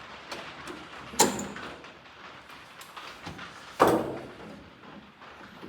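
Two sharp knocks, about a second in and again near four seconds, among lighter clicks and rattles, from work on a 1956 Ford F100's door and its window regulator.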